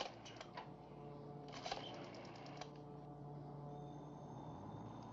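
Rotary telephone dial being turned and spinning back, giving quick runs of clicks, the longest about a second and a half in, as a number is dialled. A faint steady tone comes in near the end.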